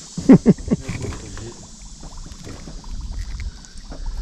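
A small largemouth bass being swung in on the line and handled for unhooking: a quick cluster of sharp knocks and slaps about half a second in, then softer rubbing and clicks.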